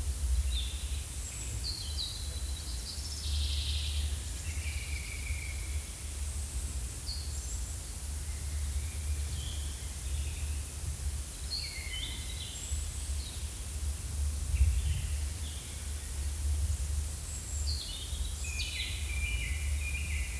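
Forest ambience: birds chirping and trilling in short phrases on and off, over a steady low rumble and a faint hiss.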